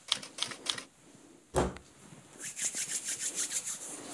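Typing sound effect: a quick run of sharp key clicks, a single louder knock about a second and a half in, then a faster, thinner run of scratchy clicks near the end.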